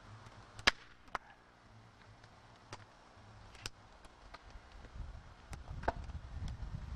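Dead wood cracking and snapping as a dead pine sapling is pulled down by hand: a few sharp cracks, the loudest about a second in. A low rumble builds near the end.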